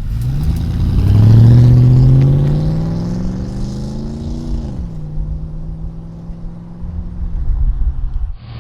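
Chevy Silverado 5.3L V8 exhaust through the stock muffler, accelerating hard from a standstill. The engine note climbs steadily in pitch for about five seconds, then drops sharply and holds at a steady lower drone.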